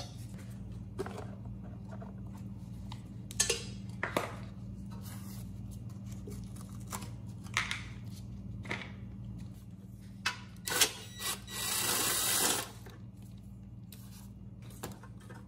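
Air filter cover being unclipped and lifted off a 10 HP Briggs & Stratton engine: scattered plastic clicks and knocks, then a rustling scrape for about a second and a half near the end, over a steady low hum.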